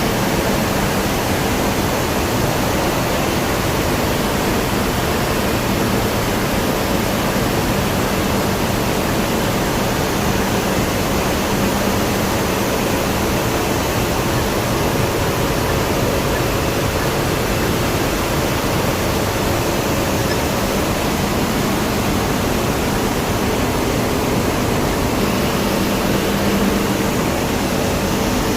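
Steady, loud industrial noise from a non-oxidizing furnace on a steel strip processing line, with a faint low hum underneath.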